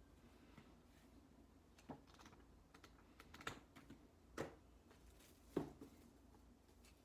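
Faint, scattered soft knocks and clicks of small objects being handled, about half a dozen over several seconds; the loudest come about four and a half and five and a half seconds in.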